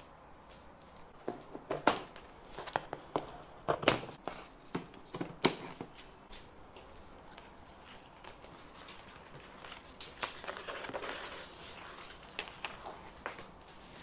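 Cardboard shipping box and packaging being opened and handled: scattered knocks, scrapes and crinkles, with a longer rustle about ten seconds in.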